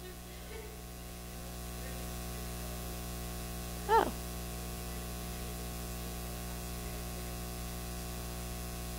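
Quiet pause in an auditorium: a steady low hum and hiss of the microphone system, with one short spoken syllable about four seconds in.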